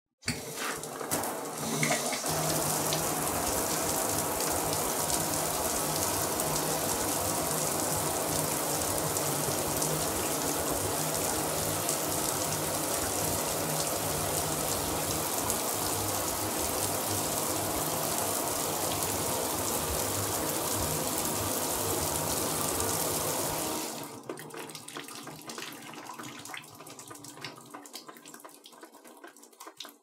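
Shower faucet turned on and running: the spray starts suddenly with a few knocks in the first two seconds, then hisses steadily. About 24 seconds in it is shut off, and faint irregular dripping and trickling die away.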